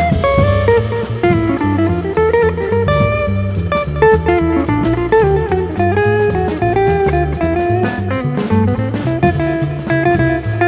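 Jazz trio playing: a hollow-body archtop electric guitar plays single-note melodic lines with slides, over plucked upright double bass notes and a drum kit with frequent cymbal strikes.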